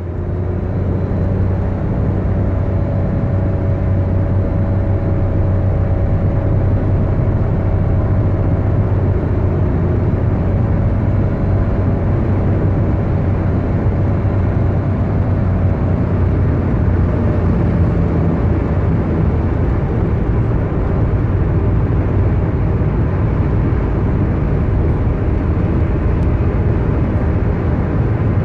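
Steady road and engine noise inside a car cruising at highway speed, with a constant low hum under the tyre rush.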